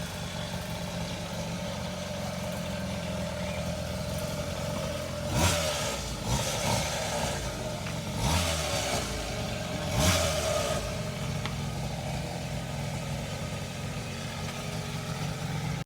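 Small two-stroke grass-cutter engine on a mini motorbike idling steadily, blipped to a quick rev four times in the middle, as the carburettor is being set.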